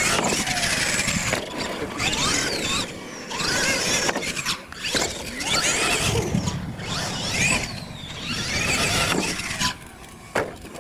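Electric motor and gears of a radio-controlled monster truck whining in repeated bursts as the throttle is worked, the pitch rising and falling with each burst. It quietens near the end.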